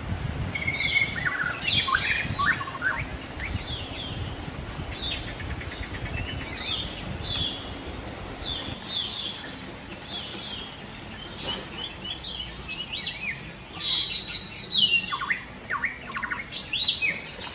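Forest birds chirping and calling, many short whistled calls overlapping, with a louder burst of calls near the end.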